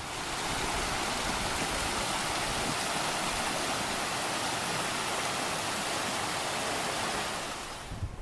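Small mountain stream rushing over rocks: a steady, even rush of water that fades out near the end.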